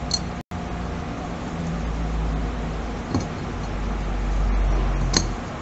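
Light metal clicks, about three in all, as a steel flange adapter ring is handled and pressed against a cast-iron turbine housing. Under them runs a low rumble that swells in the middle and eases near the end.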